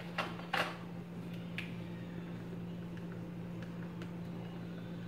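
Two light clacks in the first second as a whiteboard eraser is put down on the board's tray, then a few faint ticks of a marker on the whiteboard, over a steady low hum.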